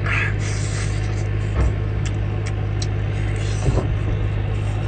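A steady low engine hum, with a few soft clicks of chewing and two short low thumps, one about a second and a half in and one past the middle.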